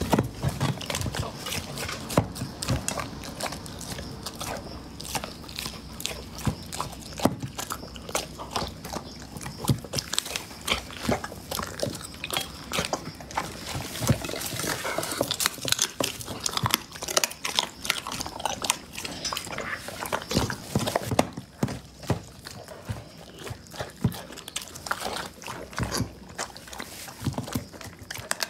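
A dog chewing and crunching through raw meaty bones, such as duck neck and rabbit ribs, with many irregular sharp crunches and clicks.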